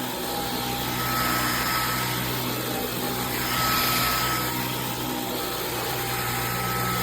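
Dyson V15 Detect cordless stick vacuum running as it is worked over a rug, a steady rushing motor and suction sound over a low hum. A high whine comes and goes and the level swells a little a few times.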